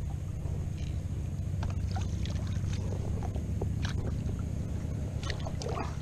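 Steady low rumble in a sit-on-top kayak on the water, with scattered light clicks and knocks of fishing gear and the plastic hull as the angler shifts while fighting a hooked bass.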